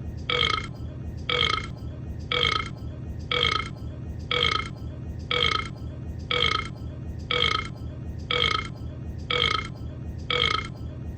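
A cartoon animal's burp sound effect, the same short burp repeated evenly about once a second, eleven times, over a steady low hum.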